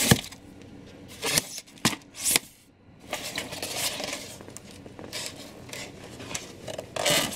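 Styrofoam packaging being handled: a few sharp knocks and scrapes in the first couple of seconds as the foam lid comes off and is set aside, then softer rubbing and rustling of the foam box.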